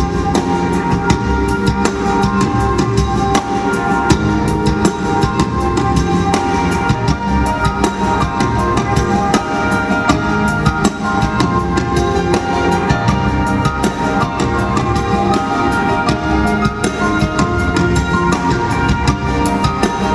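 Live band music from a concert recording: a drum kit playing a dense beat with kick drum and snare, under steady held instrument tones.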